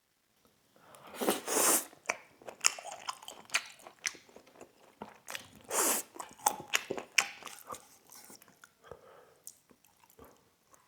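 Close-up eating sounds of braised beef rib and noodles: chewing, with many short wet mouth clicks and smacks. There are two longer, louder bursts, about a second in and about halfway through.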